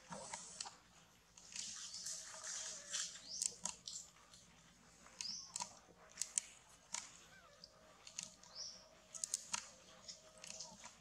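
Faint, scattered short high chirps and squeaks, a few rising quickly in pitch, with many small sharp clicks between them.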